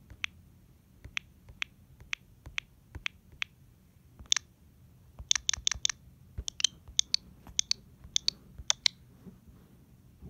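An irregular series of sharp, high clicks, some coming in quick runs of three or four, over a faint low hum.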